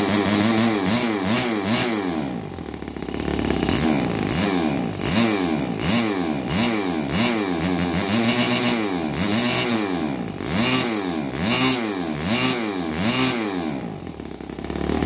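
Saito FA-40a single-cylinder four-stroke glow model engine running on methanol through a homemade microcontroller-controlled port fuel injection, revved up and down by hand on the throttle. The revs climb and fall back over and over, about once a second.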